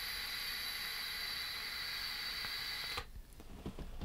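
Air hissing through the Hurricane V2 rebuildable tank's airflow holes, closed about halfway, during one steady inhale, with a faint high whistle over it. It stops about three seconds in. The whistle is the half-closed airflow making the tank a hint on the whistly side.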